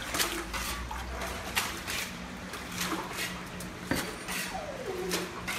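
Rain leaks dripping and splashing into buckets and onto a flooded concrete floor, in irregular drips over a faint steady hum. A short falling whine sounds about four and a half seconds in.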